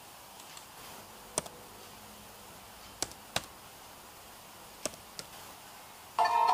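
Laptop keys being pressed: about five sharp, separate clicks at uneven intervals, then music starts suddenly near the end.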